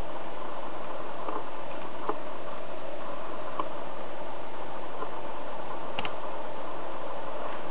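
A few sharp clicks of keys pressed on a computer keyboard while a spindle speed command is typed into the CNC control software, over a steady background hiss. The loudest click comes about six seconds in, as the command is entered.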